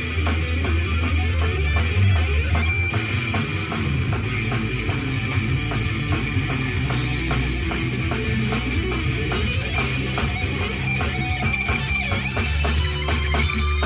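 Rock music with distorted electric guitar over a drum kit keeping a steady beat.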